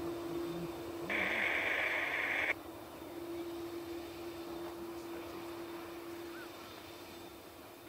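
A short burst of radio static, switching on abruptly about a second in and cutting off about a second and a half later, over a steady low hum and faint hiss.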